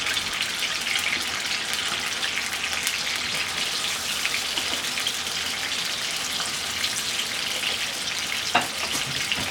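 Plantain slices frying in hot oil in a pan: a steady crackling sizzle with many small pops. A short knock comes near the end.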